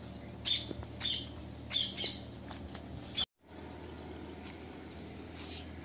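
A bird giving short, harsh calls, about five in the first three seconds, over a steady low background hum. The sound drops out completely for a moment just after three seconds in.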